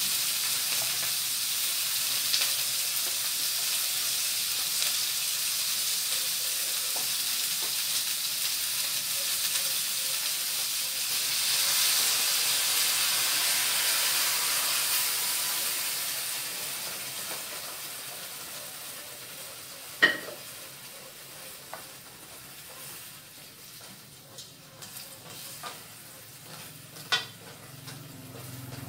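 Crab frying with a steady sizzle in a stainless steel pan over a gas burner, stirred with a wooden spatula. About halfway through, the sizzle swells as fresh coconut milk is poured in, then dies down as the milk cools the pan. A quieter stretch follows, with one sharp knock and a few lighter taps.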